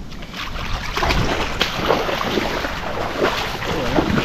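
Footsteps wading and squelching through shallow water and soft mangrove mud, in irregular short splashes and sucking sounds.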